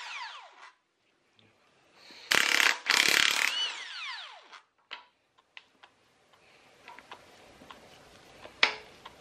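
Impact wrench hammering a head bolt loose on a Honda K24A1 cylinder head for about two seconds, its motor whine falling in pitch as it spins down. A few light clicks follow, and a sharper click near the end.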